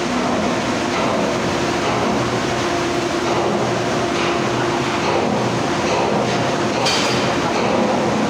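Steady machinery noise with a faint steady hum underneath and a brief hiss about seven seconds in.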